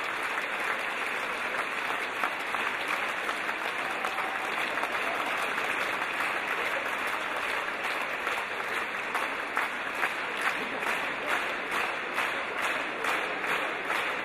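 Audience applause that turns, about halfway through, into rhythmic clapping in unison, about two claps a second.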